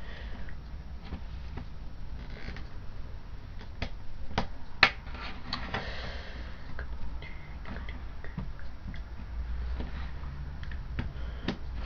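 Scattered small clicks and taps from handling a partly dismantled digital camera as its battery is fitted and it is switched on, the sharpest click about five seconds in, over a low steady hum.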